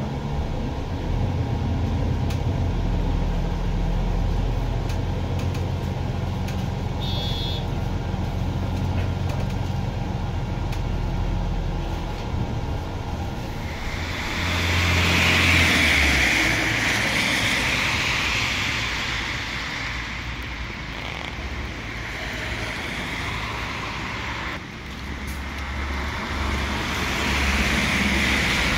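Inside the cabin of a MAN Lion's City 12 EfficientHybrid city bus on the move: a steady low drone from its 9-litre diesel mild-hybrid drivetrain, with a short high beep about seven seconds in. About halfway through it changes to street traffic on a wet road, a broad hiss, and the low drone of the bus returns near the end.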